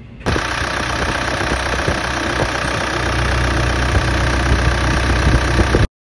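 Case backhoe's diesel engine running, loud and close-up with the hood open. The sound starts abruptly just after the start and cuts off suddenly near the end.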